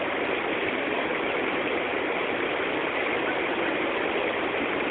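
Steady rush of waterfall water, an even hiss with no breaks.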